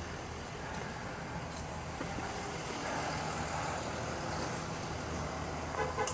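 Diesel engine of a UD medium-duty rollback truck idling with a steady low hum, and a few clicks near the end.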